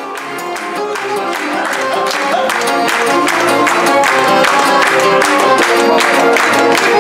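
Live acoustic folk band playing an upbeat tune: strummed acoustic guitar, double bass, accordion and violin over a steady even beat, growing louder over the first few seconds.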